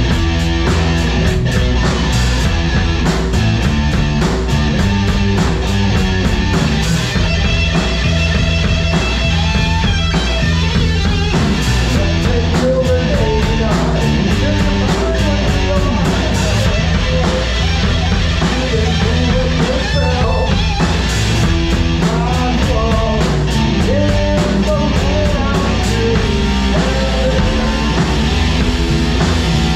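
Live rock band playing loudly: electric guitar over a drum kit, with regular cymbal and drum hits and a bending guitar line in the middle of the sound.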